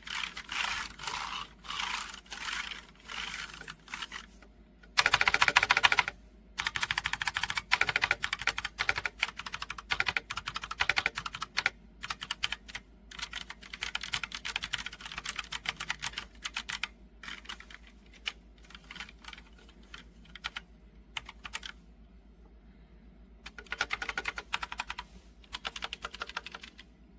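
Typing on an HK Gaming GK61 mechanical keyboard with tactile Gateron optical brown switches: rapid runs of key clicks in bursts, the loudest and densest about five seconds in, with a short lull late on.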